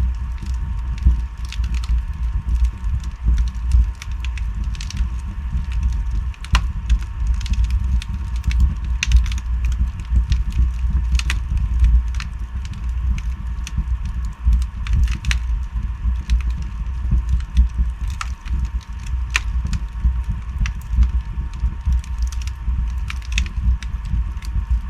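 Wood fire burning in a fireplace, crackling with frequent irregular sharp pops and snaps over a steady low rumble.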